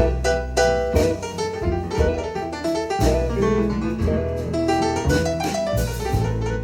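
Recorded music played back through Q Acoustics 3010 bookshelf speakers: an instrumental passage of a funky blues song, a keyboard solo over bass and drums with no singing.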